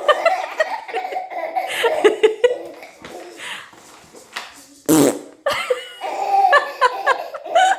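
Baby laughing in repeated giggles, with a loud fart noise about five seconds in, followed by more laughter.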